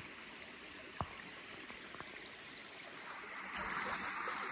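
Shallow creek water trickling over rocks, getting louder about three and a half seconds in. A single sharp click about a second in.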